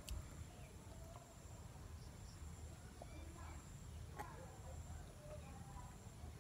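Near silence: faint room tone with a low hum, a few soft clicks and faint chirps.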